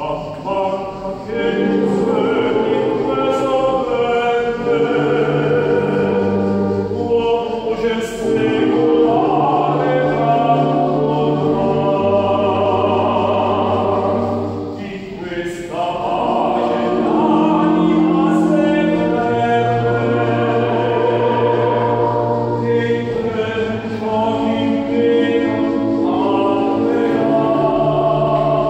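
A choir singing a slow sacred song in several parts, with long held chords over a low bass line. The phrases break briefly about every seven or eight seconds.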